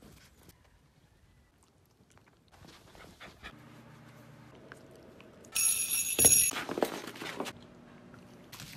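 A string of short clips of a Shetland sheepdog, with brief dog sounds and a loud, high-pitched sound about six seconds in.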